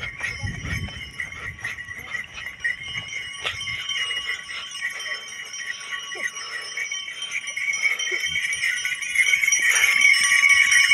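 Bells on the horses' harness jingling steadily as the horses go along, with scattered knocks of hooves on grass. It gets louder about nine seconds in, as the horses pass close by.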